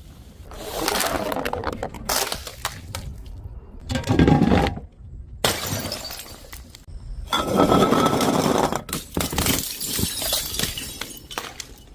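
Glass bottles shattering, several separate breaks one after another.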